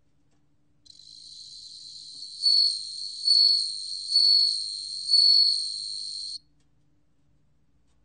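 Bell cricket (Meloimorpha japonica) singing at 27 °C: a high, steady ringing trill starts about a second in. Four louder ringing notes swell out of it about a second apart, then the song cuts off suddenly.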